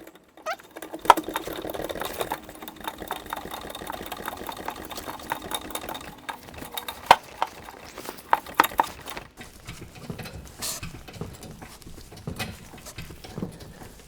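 Irregular metallic clicks and knocks from a floor jack and jack stands being worked under a car, with the sharpest knocks about a second in and around seven seconds in.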